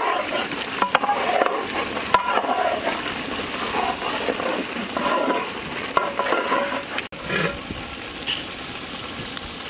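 Thick cauliflower-and-tomato curry bubbling and sizzling in a large metal pot while a ladle stirs it, with occasional clinks of the ladle against the pot.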